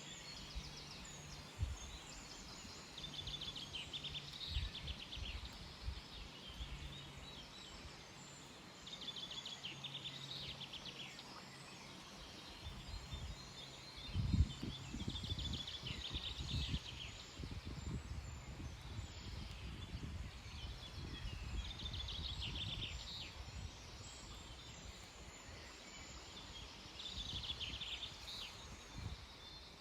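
A songbird singing short trilled phrases, repeated every few seconds, over irregular low rumbling that grows heavier from about halfway through.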